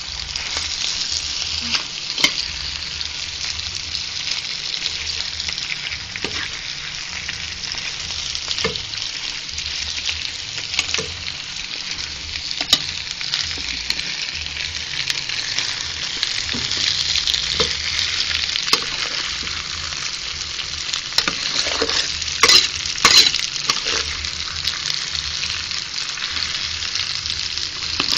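Sliced sausage, chorizo, tomato, onion and chile sizzling steadily in an enamel frying pan, with scattered clicks and scrapes of a metal spoon stirring against the pan. A few louder clinks come a little past two-thirds of the way through.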